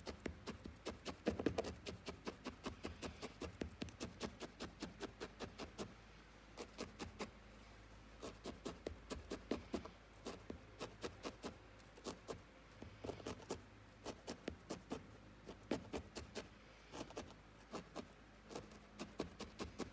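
Large dry-felting needle stabbing again and again into wool wrapped around a wire armature, tamping it firm: a quick run of soft pokes, about four to five a second, with a few short pauses.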